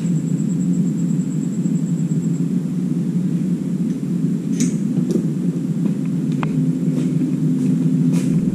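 A steady low rumble with a few light clicks and taps.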